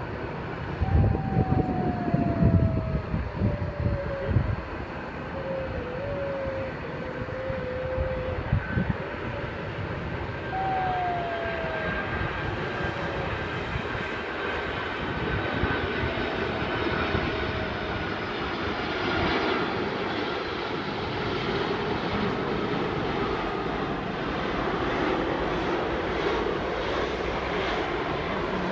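Airliner on landing approach passing low overhead: a continuous engine roar with whining tones that drop in pitch, swelling in the second half. Wind buffets the microphone in the first few seconds.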